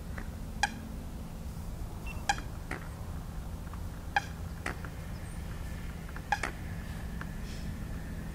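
Water birds on a pond giving short, sharp beeping calls, about seven single pips spaced irregularly, over a steady low hum.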